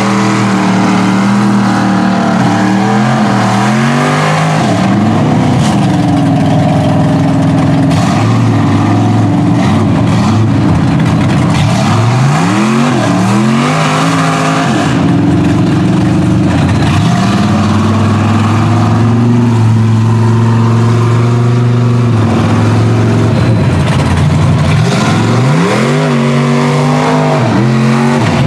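A lifted mud truck's engine revs hard, its pitch rising and falling several times, as its oversized tyres churn through a mud pit.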